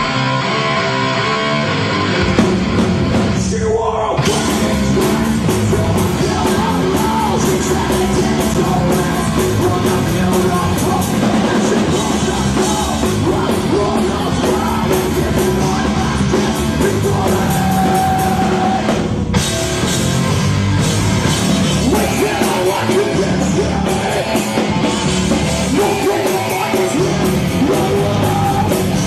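Loud live heavy metal music: a band playing distorted guitars and drums with shouted and screamed vocals. The sound cuts out for an instant twice, about four seconds in and again near nineteen seconds.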